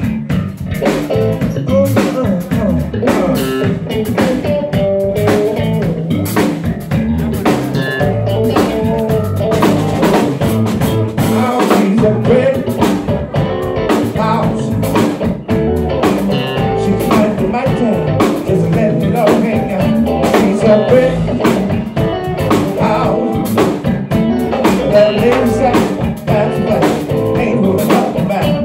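Live band playing: electric guitar, electric bass and drum kit, with a steady drum beat.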